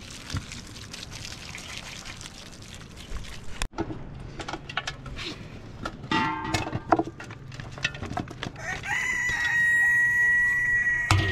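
Water poured from a kettle splashes through a plastic colander of boiled meat for the first three and a half seconds or so. Then a rooster crows, its call ending on one long held note.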